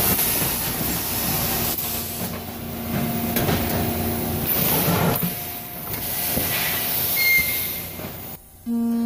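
Thermoforming-plant machinery running, a steady loud mechanical whir with a hiss of air. Shortly before the end the machine noise drops away and a steady buzzing hum starts.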